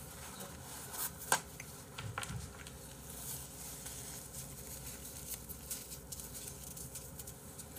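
Faint clicks and rustles of a person handling and eating food with his fingers, with one sharper click just over a second in.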